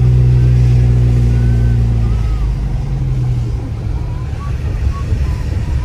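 Car engine droning steadily, heard from inside the cabin, then fading away about two to three seconds in. This leaves the low rumble of tyres on the wet road.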